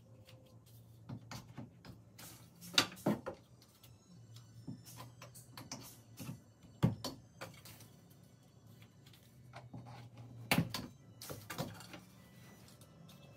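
Curved wooden bed slats being laid onto a bed frame's metal rails: irregular clacks and knocks of wood on wood and metal, the loudest about three, seven and ten and a half seconds in, over a low steady hum.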